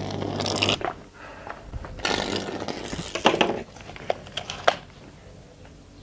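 Microwave oven transformer's 2000-volt secondary arcing to the chassis through damp paper: a loud buzzing crackle over a low hum, cut off abruptly under a second in. A second rough crackling burst follows about two seconds in, then a few sharp clicks.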